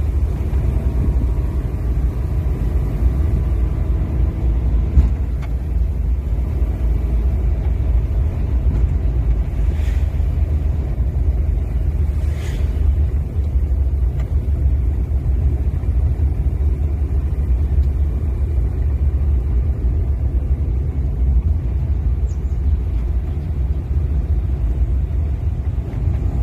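Steady low rumble, with a couple of faint brief higher sounds about ten and twelve seconds in.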